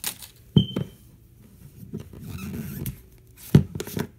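Plastic slime container being handled and opened: sharp clicks and taps about half a second in and again near the end, with a softer rubbing, squishing sound between them.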